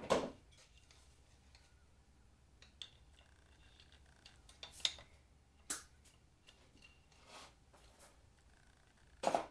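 Scattered light metallic clicks and taps, a second or two apart, from handling a piece of wire and hand tools at the engine.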